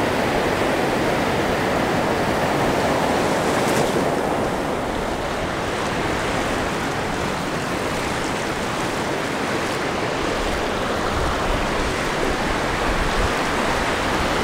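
Shallow surf washing over sand: a steady rush of foaming water.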